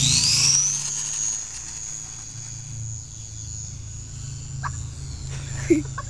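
Small electric motor and propeller of a cheap RC plane winding up in a fast rising whine, then holding a steady high whine that grows fainter after the first second or so as the plane flies off.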